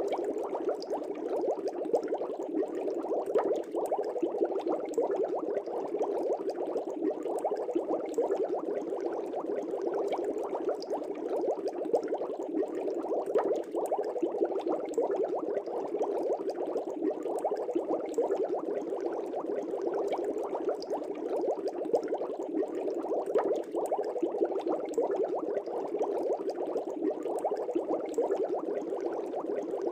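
Aquarium air bubbles bubbling continuously in water, a dense stream of small pops with no pause.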